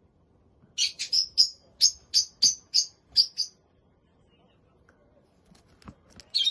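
Parrot giving a quick run of short, sharp high-pitched chirps, about three a second, then falling quiet for a couple of seconds before chirping again near the end.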